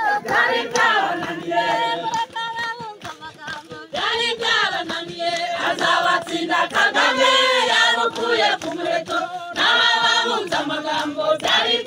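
A group of women singing together in chorus, unaccompanied, in phrases with short pauses about four seconds in and again near ten seconds, with short sharp beats sounding alongside.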